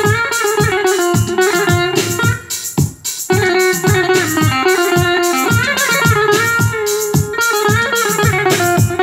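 Yamaha arranger keyboard playing a plucked-string folk voice in the style of a Turkish buzuq: a quick melody of short notes over a drum beat. The music drops out briefly about three seconds in.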